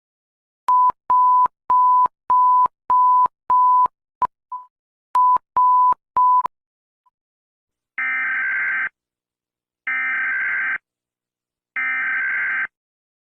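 A run of short electronic beeps at a single pitch, about two a second, with a brief stutter partway through. Then three harsh digital data bursts of about a second each, evenly spaced: the SAME header tones that open an Emergency Alert System alarm.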